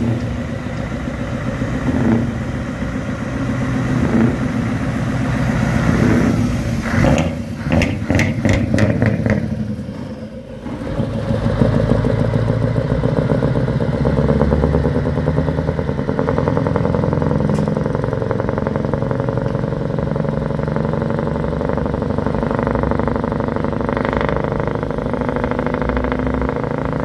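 Scania 164L 480 V8 truck engine with an open exhaust, revving and pulling away. There is a quick run of sharp revs about seven seconds in and a brief drop near ten seconds, then a steady drone that slowly rises in pitch.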